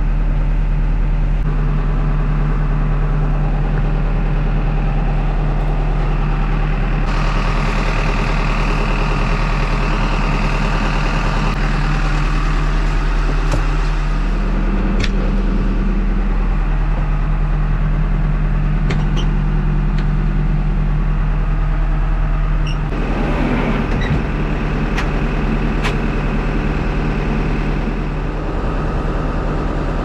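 HEPCO HLB95B backhoe loader's diesel engine running steadily, heard from inside the cab, its tone shifting about a quarter of the way in and again past two thirds, with a few sharp clicks.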